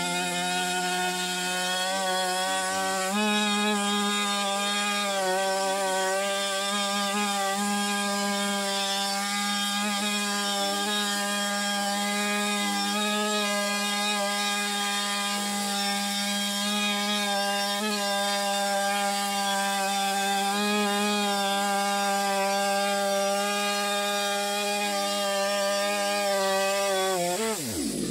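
Two-stroke chainsaw on an Alaskan chainsaw mill running at full throttle under load as it rips lengthwise through a cedar log, holding a steady high engine note. Near the end the engine note drops sharply as the throttle is released at the end of the cut.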